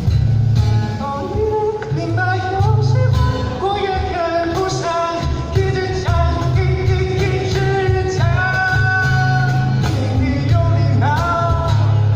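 Karaoke song music: a rock-pop style backing track with a melody line over a heavy bass line.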